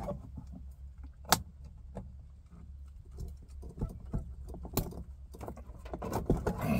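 Floor shift lever of a Tremec SROD three-speed overdrive manual transmission being worked by hand to find neutral. The metal lever and linkage give small clicks and knocks and three sharp clacks, the loudest about a second in.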